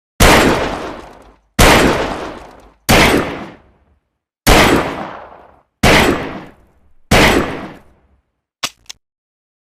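Saturday night special revolver firing six shots, about one and a half seconds apart. Each shot is a sharp crack with a long fading tail. Two faint clicks follow near the end.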